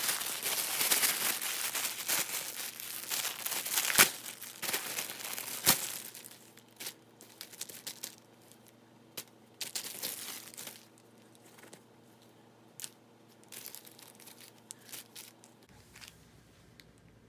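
Clear plastic packaging bag crinkling and rustling as a fluffy duck-down cat toy is pulled out of it. Dense crinkling for the first six seconds, with two sharp snaps about four and six seconds in, then scattered short rustles that die away.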